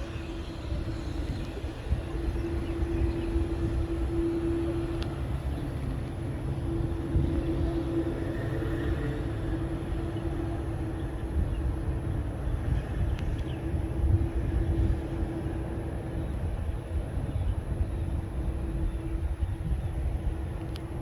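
Boeing 787-9 airliner's jet engines running: a steady low rumble with a steady hum held throughout.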